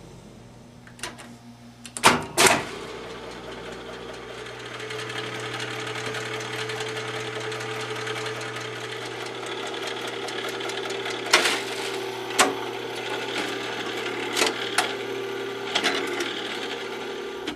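Jukebox record-changer mechanism cycling. It gives a few sharp clicks and clunks, then runs with a steady motor hum, and near the end a series of clicks comes as the record is set in place to play.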